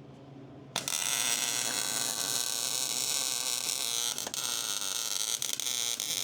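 Welder arc burning steadily while a bead is laid on steel, a loud hissing crackle that starts abruptly about a second in.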